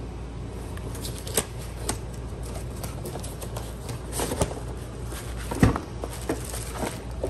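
A cardboard retail box being opened and a tool in a clear plastic bag pulled out of it: scattered rustling, crinkling and light knocks, the sharpest about five and a half seconds in, over a steady low hum.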